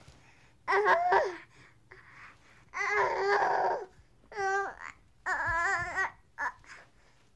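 Baby crying angrily in about five short, loud outbursts separated by brief pauses, the pitch wavering and one cry about three seconds in harsh and screechy.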